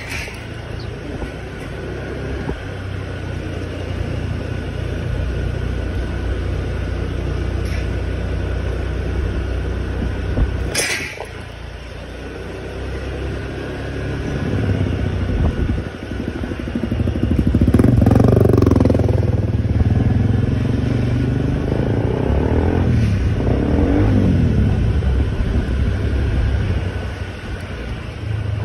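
Honda motor scooter riding along, its small engine running steadily with road noise. There is a sharp click near the middle, and over the second half a louder engine sound rises and falls in pitch.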